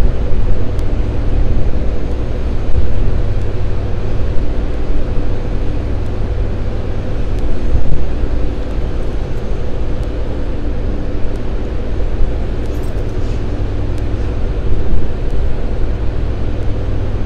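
Steady loud machinery hum of running chiller equipment: a low drone with several steady tones over it, unchanging throughout.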